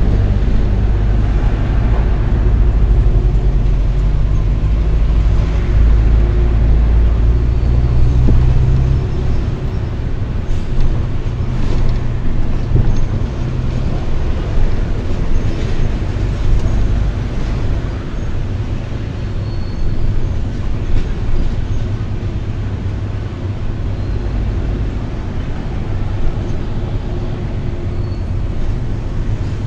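Vehicle engine and road noise: a loud, steady low rumble, heaviest for the first nine seconds or so, then easing slightly.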